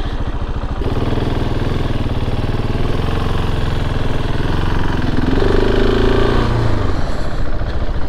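KTM 690 Enduro R's single-cylinder engine running as the bike is ridden. The engine note picks up about a second in, climbs in pitch around six seconds, then eases off shortly before the end.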